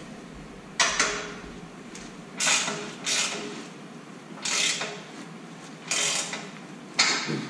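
Hand ratchet tightening a bolt, six short strokes spaced about a second apart.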